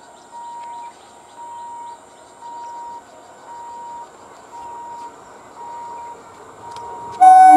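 An electronic warning beeper sounds about once a second, each beep about half a second long, over faint bird chirps. About seven seconds in, the approaching ICF Medha EMU electric train sounds its horn, loud and sustained, several tones at once.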